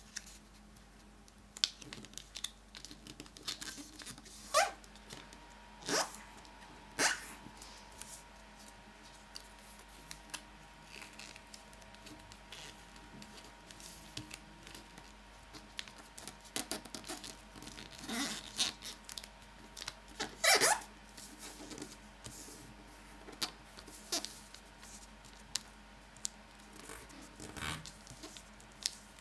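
A square sheet of origami paper being folded and creased by hand on a wooden tabletop: scattered crisp rustles, swishes and light taps of paper and fingertips, with a few louder swishes now and then.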